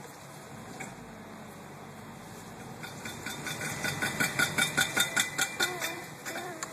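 2000 Volvo XC70 with a rhythmic metallic clicking and pinging, about four ticks a second, over a low vehicle rumble. The ticks start about three seconds in, grow louder, then ease off near the end. The uploader ties the noise to a wheel.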